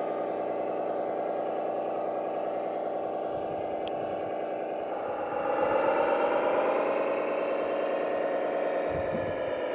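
Radio-controlled model construction vehicle running with a steady engine-like drone. About five seconds in it rises in pitch and gets louder, as when driven or put under load, then holds at the higher pitch.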